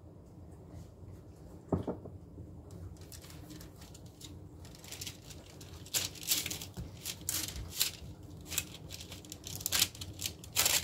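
Hands spreading olive oil over soft focaccia dough on a sheet pan: soft wet pats and smears, turning into a run of quick slaps in the second half. A single knock about two seconds in.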